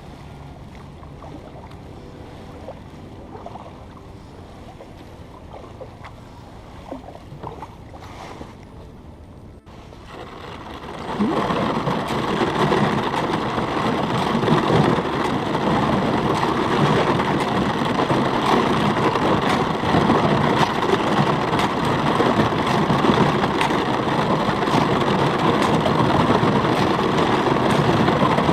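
Kayak hull pushing through thin ice on a pond: ice crackling, crunching and scraping along the boat. A quieter stretch of faint ticks gives way about ten seconds in to loud, dense crackling that keeps on.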